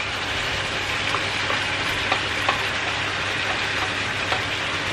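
Curried chicken pieces sizzling steadily in hot oil in a frying pan, as potato chunks are tipped in from a steel pot, with a few faint light knocks as they land.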